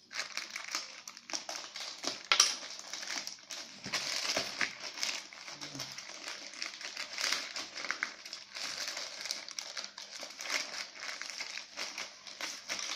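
Shipping package being opened by hand: continuous crinkling and rustling of packaging with many small crackles and clicks, one sharper crack about two and a half seconds in.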